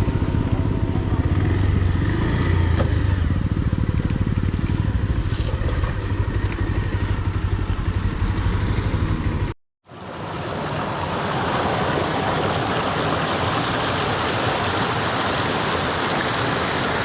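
A motor vehicle running with a heavy low rumble. It cuts off abruptly about ten seconds in, and after a moment of silence a waterfall's rushing water follows as a steady, even hiss.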